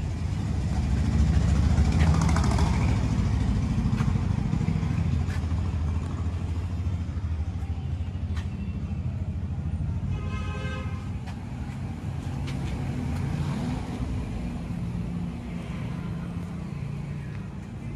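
Mahindra 475 DI XP Plus tractor's diesel engine idling steadily.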